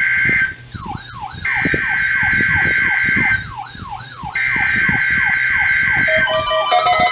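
Weather alert radios sounding their alarms, as set off by a NOAA Weather Radio required weekly test. A steady high beep comes on for about two seconds and goes off for about one, while a falling siren-like whoop repeats about four times a second. About six seconds in, an electronic alarm melody starts.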